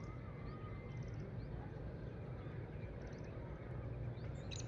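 Outdoor ambience: a steady low rumble with faint, short high chirps and quick trills of small birds scattered through it.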